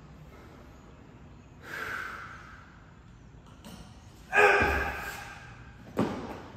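A man breathing hard while recovering from an all-out workout: a heavy exhale about two seconds in, then a louder gasping breath a couple of seconds later. A short sharp knock comes near the end.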